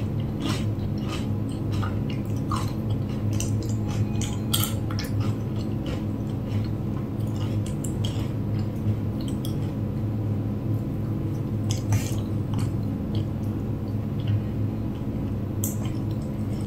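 A person chewing crunchy papad, with short crisp crunches and mouth clicks, many in the first few seconds and sparser later, over a steady low hum.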